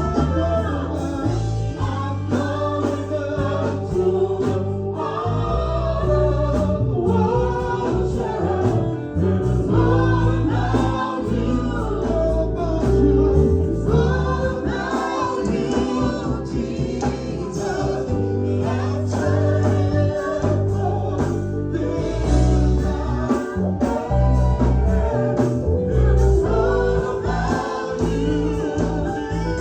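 Gospel worship music: a choir singing over instrumental backing with a steady, prominent bass.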